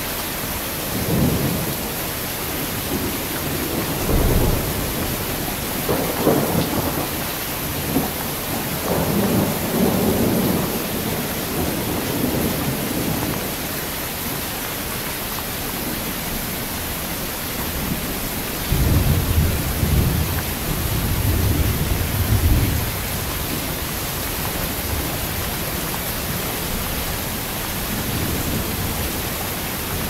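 Heavy rain falling steadily, with low rumbles of thunder rolling through it: several short rumbles in the first third and a longer, louder roll a little past the middle.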